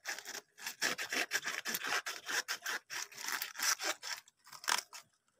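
Kitchen knife sawing back and forth through a raw artichoke, many short strokes in quick succession that ease off about four seconds in, with two more strokes near the end.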